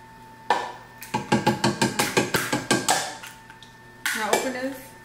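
A knock, then a fast run of metallic clinks and taps as an opened tin can is shaken and tapped over a cooking pot to empty it.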